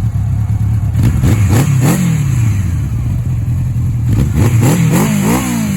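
1984 Honda Nighthawk CB700SC inline-four running through aftermarket F1 exhaust pipes. It idles steadily, is revved up and falls back once about a second and a half in, then is blipped several more times near the end.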